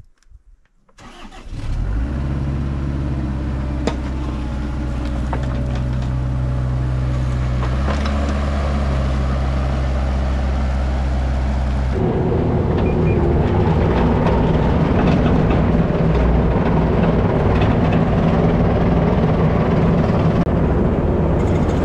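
Excavator's diesel engine starting about a second in and then running steadily. About twelve seconds in its note changes, turning rougher and a little louder.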